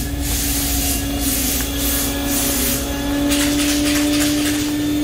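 Air spray gun hissing in repeated short passes as metal-flake clear is misted onto a car's fresh paint, over a steady low hum.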